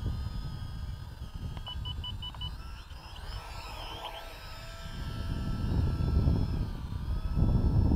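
Propel Cloud Rider quadcopter's propellers whining steadily as it flies and dips low over the grass, with a run of five quick electronic beeps about two seconds in. Gusty wind rumbles on the microphone, stronger in the second half.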